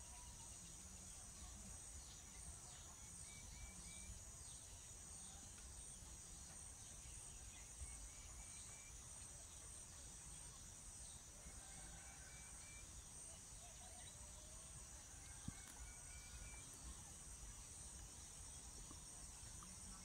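Faint, steady high-pitched insect chorus, with a short bird call repeating faintly about every four seconds.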